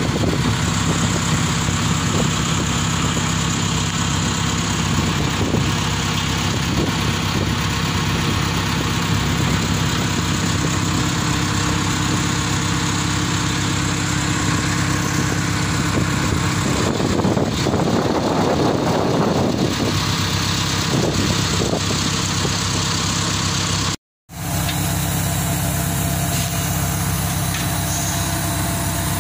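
A mobile crane's engine running steadily, with a louder rushing swell for a few seconds past the middle. The sound cuts out for a moment about 24 seconds in.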